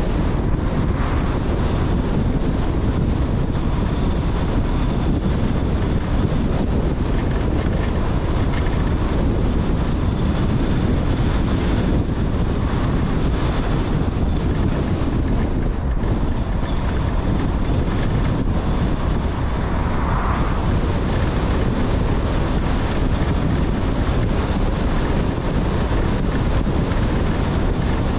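Steady rumble of a car driving on the road: tyre and wind noise, with wind buffeting the microphone.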